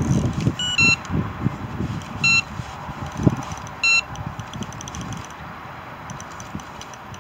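Electronic carp bite alarm giving four short, high beeps spaced irregularly over the first four seconds, signalling line being taken by a hooked fish. Low irregular wind buffeting on the microphone runs underneath, loudest near the start.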